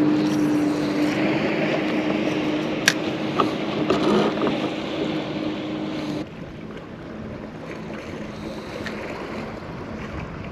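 A small motor on a fishing kayak hums steadily over wind and water noise, with a sharp click about three seconds in, then cuts off suddenly about six seconds in, leaving quieter wind and water.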